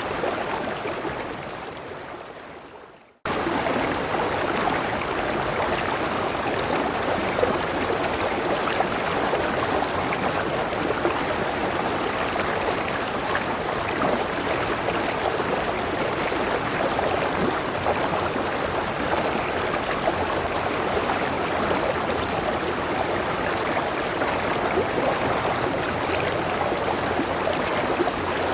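Clear river water rushing steadily over a small waterfall. It fades out over the first three seconds, then cuts back in suddenly at full strength and runs on evenly, the join of a looped recording.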